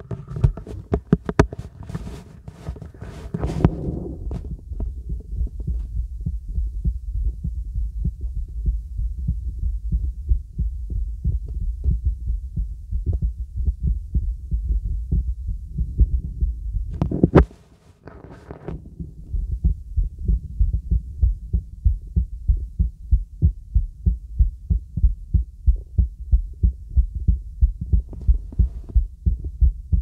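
Heartbeat through a stethoscope's diaphragm: a regular run of low lub-dub thumps. Scraping and rubbing of the chest piece in the first few seconds, then again briefly about 17 seconds in with a loud scrape and a short dropout, and once more near the end.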